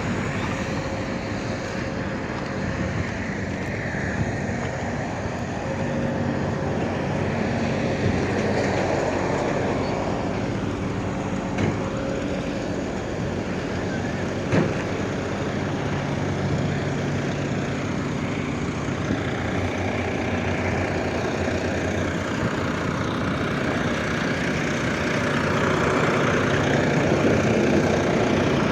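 Excavator's diesel engine running steadily, with a couple of sharp knocks about twelve and fifteen seconds in.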